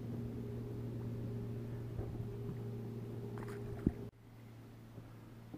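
Boat's electric trolling motor humming steadily, with a few light knocks and a click; the hum drops off abruptly about four seconds in.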